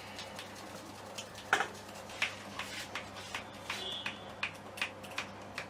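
Sharp, evenly spaced clicks, about three a second, starting about a second and a half in, over a steady low hum.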